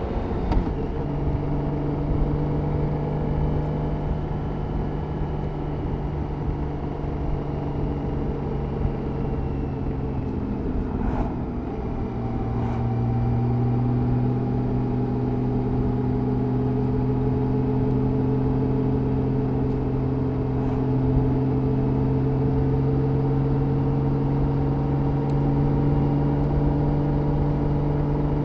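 BMW K 1600 GT's inline-six engine running under way at steady riding speed. Its pitch steps down about half a second in and again around twelve seconds in, then holds almost steady, rising slowly.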